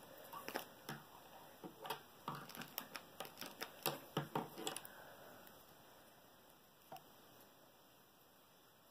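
Faint, irregular clicking of knitting needles tapping together as rows of stitches are knitted, stopping about five seconds in, with one more click near seven seconds.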